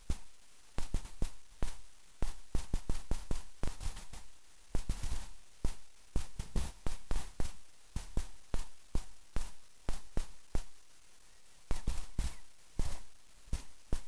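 A rapid, irregular series of sharp taps or clicks close to the microphone, several a second, with short gaps around the middle and near the end.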